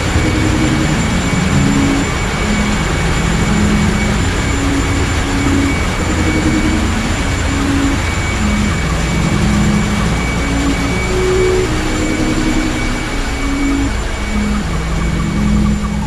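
Loud, steady engine-room noise of a bulk carrier with its main diesel engine and machinery running: a deep rumble with a thin high whine. A slow tune of held low notes repeats over it.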